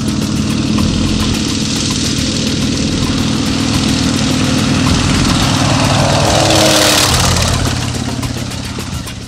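Antonov An-2 biplane's nine-cylinder radial engine and propeller flying a low pass: a steady drone with a rushing noise that swells to its loudest about seven seconds in, then the engine note drops in pitch and fades as the aircraft goes by.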